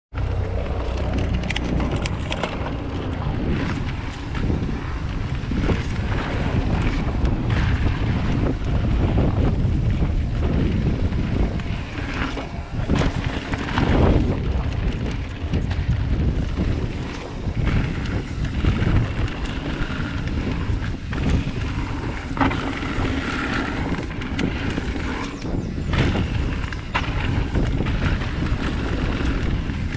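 Mountain bike descending a rocky dirt trail at speed: steady wind noise buffeting the camera microphone over the tyres running on dirt and stones, with scattered clatters from the bike and loose rocks.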